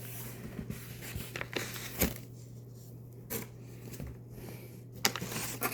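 Packaging being handled and opened: rustling and tearing with several sharp clicks and knocks, the loudest about two seconds in, over a faint steady low hum.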